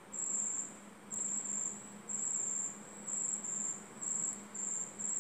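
A cricket chirping in high-pitched trills, about two a second, over a faint sizzle of tuna pieces frying in coconut oil.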